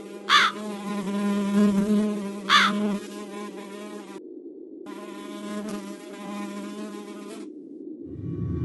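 Flies buzzing steadily, with two short, louder buzzes in the first few seconds, about two seconds apart. The higher buzz drops out briefly about four seconds in and fades away near the end, as a deep low drone comes in.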